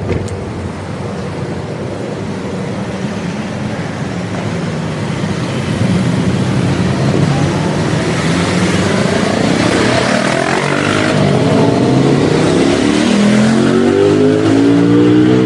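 Motorcycle engine approaching on the mountain road, growing steadily louder and revving up through the gears near the end, the pitch climbing and dropping back at each shift.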